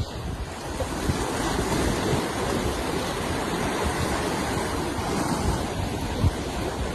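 Ocean surf washing steadily, with wind buffeting the microphone in low gusts.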